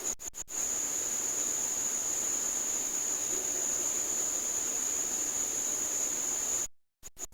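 A high-pitched insect trill: rapid chirping pulses that turn into one steady unbroken trill about half a second in, cut off abruptly for a moment near the end before the rapid pulsing returns.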